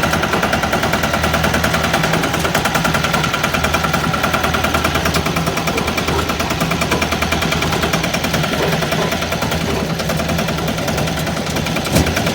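Single-cylinder diesel engine of a patpat (two-wheel walking tractor) running with a fast, even chug. There is one louder knock near the end.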